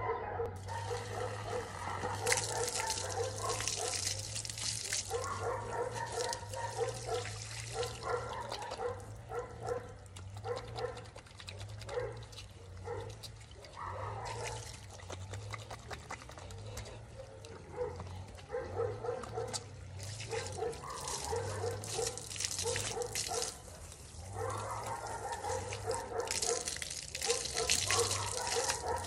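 Water from a garden hose spraying and splashing onto concrete, with a dog barking in repeated runs of short barks throughout.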